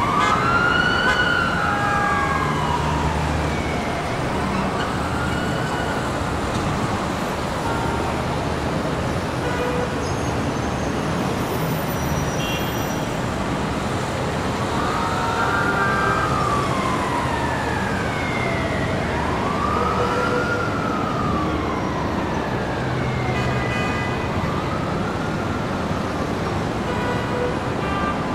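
Emergency vehicle siren wailing in slow rising and falling sweeps over steady city traffic noise. The siren fades in the middle and comes back strongly about fifteen seconds in for two more sweeps.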